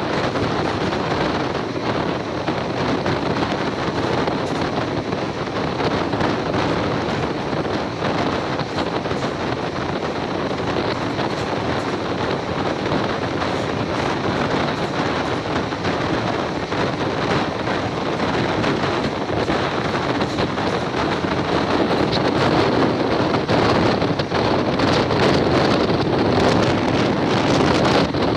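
Passenger express train running at speed, its running noise on the rails heard from an open coach door together with heavy wind buffeting on the microphone, a steady rushing that grows a little louder near the end.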